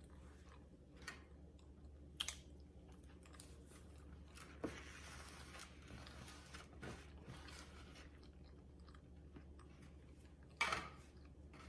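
A person chewing a mouthful of chicken salad wrap in a flour tortilla, faint mouth and chewing sounds with a few short sharper smacks or clicks, the loudest a little before the end.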